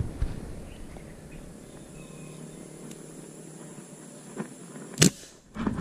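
Quiet outdoor background, then a single sharp crack about five seconds in: an airgun being fired at a fish in the water.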